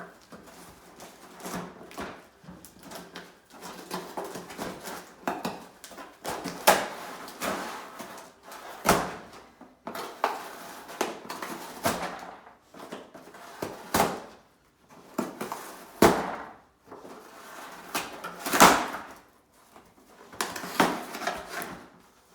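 A dog working at a puzzle box: irregular loud knocks and bangs as the box and its pieces are pushed about, with scraping and rustling between them.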